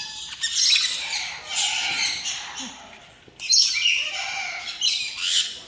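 Aviary parrots squawking: repeated harsh, high calls in bursts, with a brief lull about three seconds in.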